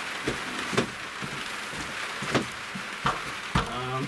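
Rain pattering steadily on the roof, with a handful of sharp knocks and clatters as an orange fiberglass stepladder is carried in and set up, the loudest near the end.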